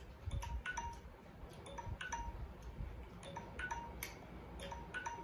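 Light, tinkling chime notes at several different pitches, a few each second, each ringing briefly, over a low rumble.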